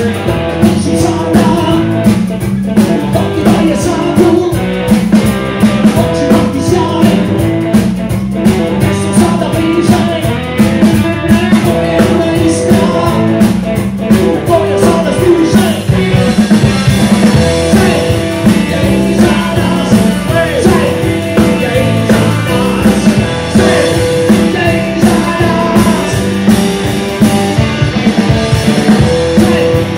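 A pub rock trio playing live: electric guitar, bass guitar and drum kit in a steady rock-and-roll beat.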